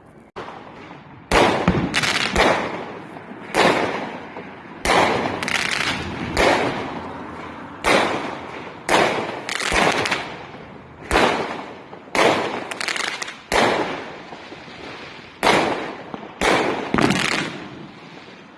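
Fireworks going off in a rapid series of sharp bangs, about one a second, each followed by a fading echo.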